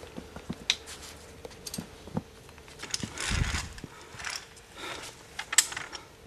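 Scattered metallic clicks and clinks of via ferrata carabiners handled on the steel safety cable, with a dull low bump about three seconds in.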